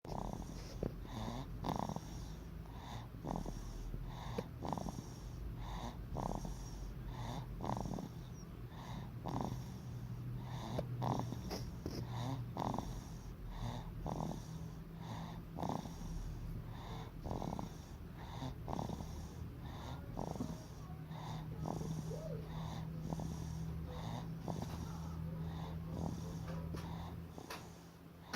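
A baby snoring in quick, short breaths, about three every two seconds, with a rasping, wheezy edge.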